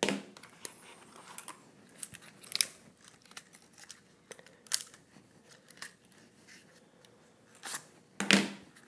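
Handling noise of a hard-shell drone case and a small plastic folding drone being lifted out and handled: scattered light clicks and rustles, with two louder knocks near the end.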